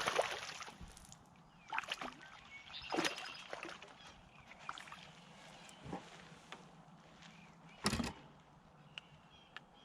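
Splashing and sharp knocks against the boat as a hooked largemouth bass is brought aboard, a handful of separate bursts with the loudest knock near the end.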